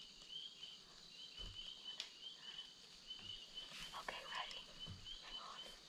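A steady run of short, high chirps from a small animal, two or three a second, with faint whispering about four seconds in and a faint click about two seconds in.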